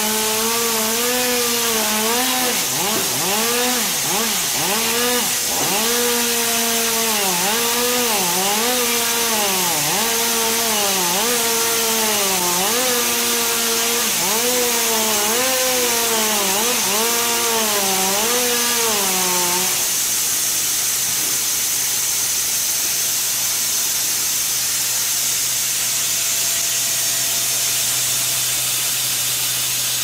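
Horizontal band sawmill cutting through a log: a humming machine note that sags in pitch and recovers about once a second as it works through the wood. About two-thirds of the way through the note stops, and only a steady hiss and a low hum remain.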